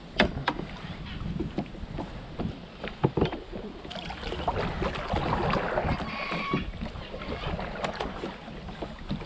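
Paddling a kayak: water splashing and dripping off the paddle, with a few sharp knocks, most likely the paddle on the plastic hull, over a low rumble of wind on the microphone.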